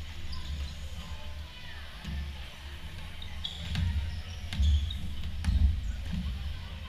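A volleyball bouncing on a sports-hall floor, about three thuds in the second half, with short high sneaker squeaks on the court.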